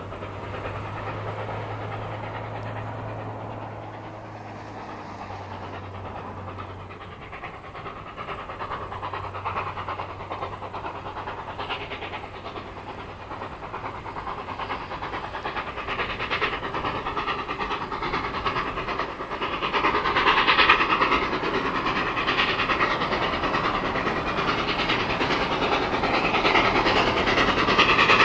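Steam locomotive 5910 working hard as it approaches, its chuffing exhaust growing steadily louder.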